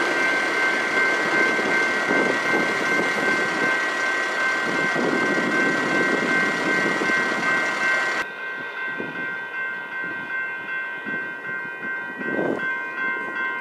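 Coal train's hopper cars rolling over the rails through a grade crossing, with the crossing's warning bell ringing steadily. The rolling noise drops away suddenly about eight seconds in while the bell keeps ringing.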